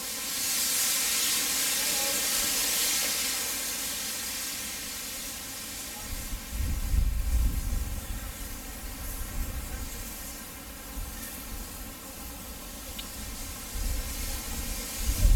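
Steam locomotive venting steam: a loud hiss that starts at once and fades away over several seconds, then irregular low rumbling from about six seconds in.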